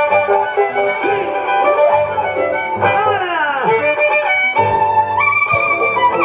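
Violin-led tipaki tipaki band music: several violins carry the tune in held notes, with sliding notes about three seconds in and a step up in pitch near the end.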